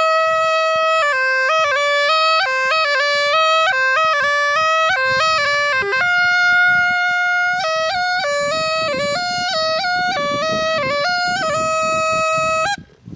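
Snake charmer's pungi (been) playing an unbroken melody that moves between notes and dwells on a held tone. It stops abruptly near the end.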